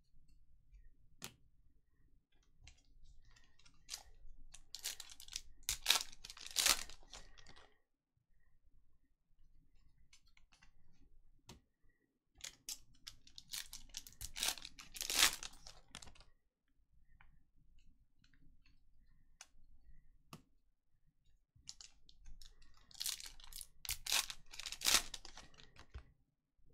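Trading-card packs being torn open and their wrappers crinkled, in three bouts of crackling rustle a few seconds apart, with quieter handling noise between.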